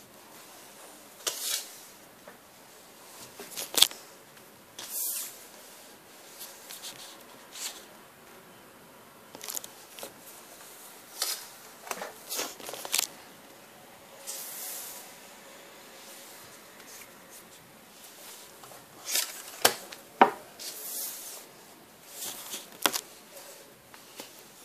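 Paper trading cards being handled and slid over a wooden table: scattered short rustles and scrapes, with a few sharp clicks.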